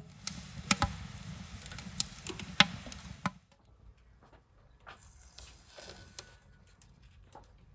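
Firewood burning in a steel stove's firebox, crackling with about six sharp pops over the low rumble of the flames. After about three seconds it drops to a faint background with a few light taps.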